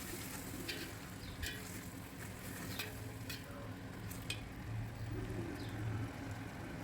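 Tomato and chilli-powder masala sizzling in oil in a pan while a spoon stirs it, with a few scattered scrapes and clicks of the spoon against the pan, over a low steady hum.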